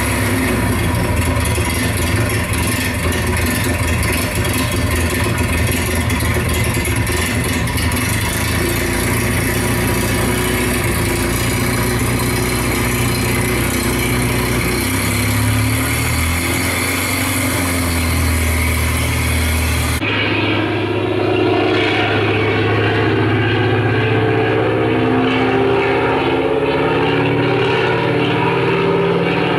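Old aircraft piston engine running steadily. About twenty seconds in, the sound cuts abruptly to a duller engine sound with a wavering pitch.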